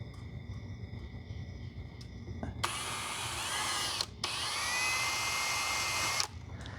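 Power drill running in two bursts, about a second and a half and then two seconds, with a short stop between; the motor's whine rises as it spins back up. It is drilling out a roughly 4 mm hole with an 11/64 inch bit.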